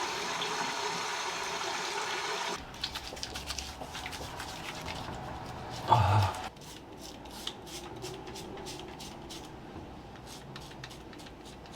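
Shaving: an electric shaver buzzing steadily, switched off about two and a half seconds in, followed by a run of small scraping clicks of the blade on stubble.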